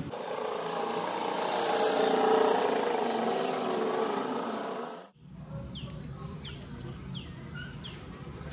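A rushing noise swells, peaks about two seconds in, and cuts off abruptly after about five seconds. A small bird then calls over and over in short falling chirps, about two a second.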